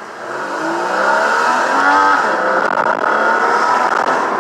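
2014 Porsche Cayman's 2.7-litre flat-six accelerating hard, heard from inside the cabin with the windows down. The revs climb through first gear, a quick PDK upshift to second comes about two seconds in, and the revs then climb again.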